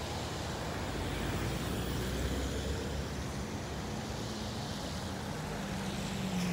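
Car traffic on a rain-soaked, flooded street: a steady wash of tyre and engine noise. About four seconds in, a nearer vehicle's engine hum comes in and grows louder.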